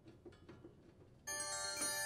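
Faint clicks of a Phillips screwdriver turning out sheet-metal screws. A little over a second in, a chime sound effect cuts in suddenly and rings on: many bell-like tones held together, the on-screen caution signal for a sharp edge.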